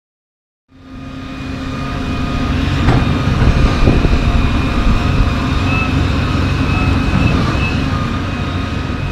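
Heavy machinery engine running steadily, fading in under a second in, with a faint wavering whine above the engine note.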